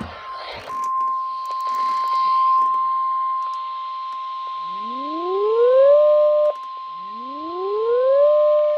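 NOAA Weather Radio 1050 Hz warning alarm tone, a single steady high beep that sounds before a warning message. Over its second half, two rising siren-like wails climb for about a second each, hold, and cut off abruptly.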